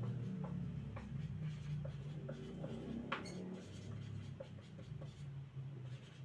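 Marker writing on a whiteboard: short scratchy strokes and light taps of the felt tip, over a low steady hum.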